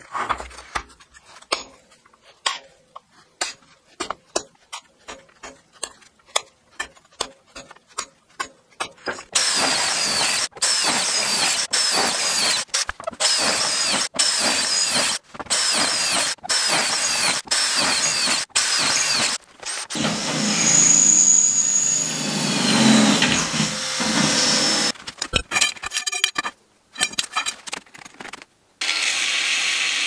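A run of sharp taps, about two a second, then a hand-held electric drill boring through a clamped stack of square steel tubes in several short runs, with a high whine that rises and falls midway. Near the end an angle grinder starts cutting steel rod.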